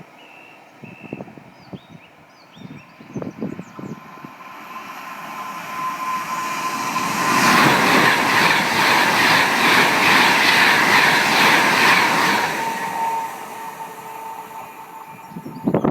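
A train passing close by on a heritage railway. It builds up over several seconds, is loudest for about five seconds in the middle with wheels clicking regularly over the rail joints, then fades. A steady high tone runs through it and drops slightly in pitch once the train has gone by.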